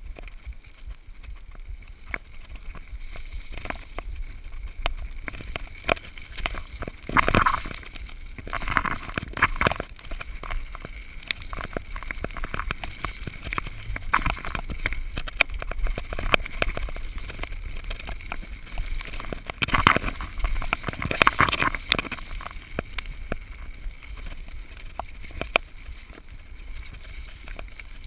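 Mountain bike ridden fast down a rough forest trail: tyres rumbling over stones and dirt, and the bike clattering and rattling over bumps, with wind noise on the microphone. The clatter is loudest from about 7 to 10 seconds in and again from about 20 to 22 seconds in.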